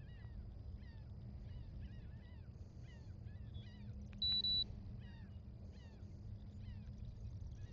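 Birds calling over and over with short, falling chirps over a steady low hum, and two short high electronic beeps close together about four seconds in.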